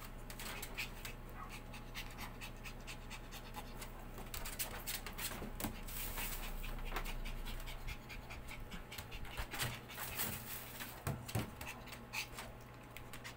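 A four-month-old Maltese puppy panting quickly and steadily with its tongue out.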